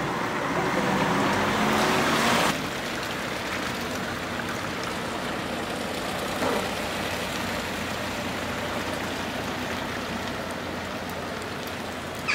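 Street traffic on a wet, slushy road: a steady tyre hiss, louder in the first couple of seconds before it cuts off suddenly, then a lower steady hiss of passing cars.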